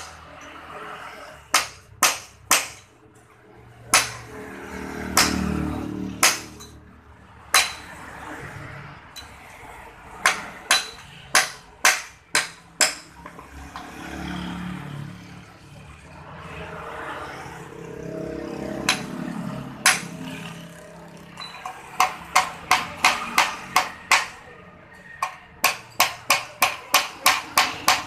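Hammer blows on a Honda Supra X 125 motorcycle's steel exhaust pipe at the muffler joint, during repair of a leaking exhaust. Sharp knocks come singly and in short runs, then turn into a fast steady series of about three a second for the last few seconds.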